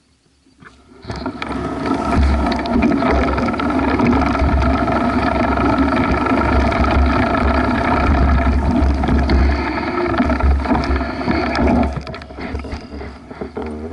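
Giant Talon mountain bike rolling over grass: a loud, steady rumble and hum of the tyres and frame, with wind buffeting the bike-mounted camera. It starts about a second in and eases off near the end as the bike slows to a stop.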